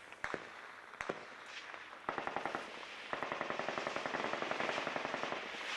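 Gunfire in a firefight: a few separate single shots, then about two seconds in a rapid, continuous stream of automatic machine-gun fire that grows heavier about a second later.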